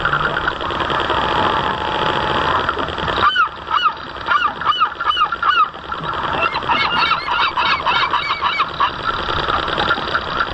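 Geese honking in a quick series of short calls about three seconds in, then several honking together for a few seconds. Under them, the model boat's motor drones steadily, dropping away while the first honks sound.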